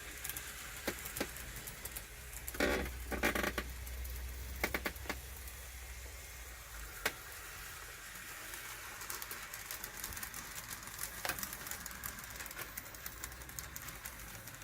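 N gauge model train (a DMU) running round the layout track: a faint steady hum with scattered small clicks and ticks, in clusters about two and a half and four and a half seconds in.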